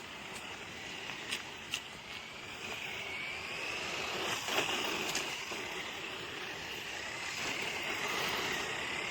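Small electric motor of a toy RC monster truck whining, its pitch wavering up and down with the throttle, over a steady hiss. A few sharp ticks sound in the first half.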